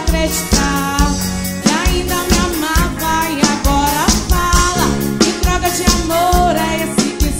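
Live band playing an upbeat song: a drum kit keeps a steady beat under brass and guitar, with a voice singing the melody.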